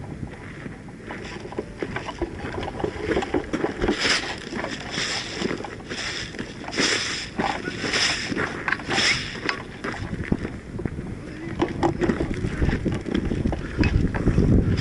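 Crunching and rustling, with a run of strokes about once a second in the middle, over wind rumble on the microphone: a player moving through dry ground cover.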